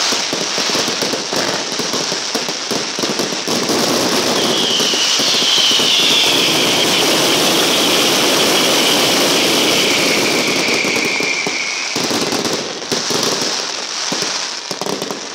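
Fireworks going off in a dense, continuous barrage of rapid crackling bangs. From about four to twelve seconds in, a high, slightly falling whistle sounds over the crackling, and near the end the barrage thins out.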